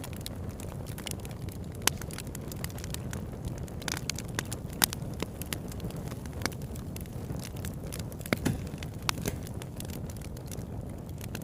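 Campfire burning: a steady low rush of flame with frequent irregular crackles and sharp pops, a few of them louder snaps.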